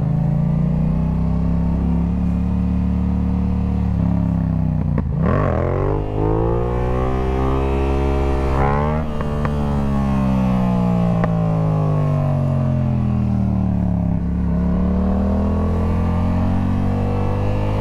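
Yamaha R7's 689 cc parallel-twin engine being ridden hard. It runs at a steady pitch, then about five seconds in gives a sharp throttle blip and a long climbing rev that drops off suddenly just before nine seconds. After that the revs sink and rise again.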